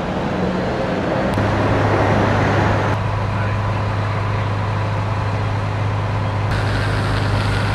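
A heavy-vehicle engine idling: a steady low drone over outdoor traffic noise, starting suddenly about a second and a half in.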